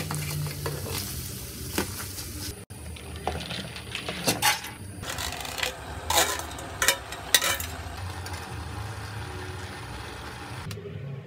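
Metal spoon stirring diced vegetables frying in a steel pot, over a steady sizzle, with several sharp knocks of the spoon against the pot.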